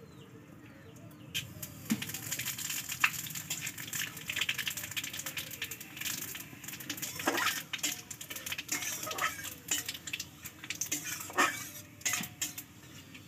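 Panch phoron seeds spluttering and sizzling in hot oil in an aluminium karahi, a dense crackle of small pops, with a metal spatula scraping and knocking against the pan several times in the second half.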